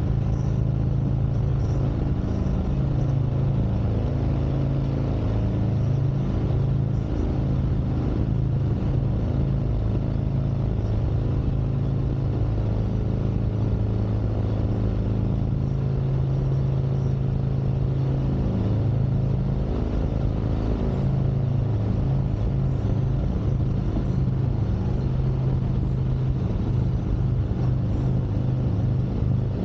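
Harley-Davidson Street Glide Special V-twin engine running steadily under way, its exhaust note rising and falling slightly with small throttle changes.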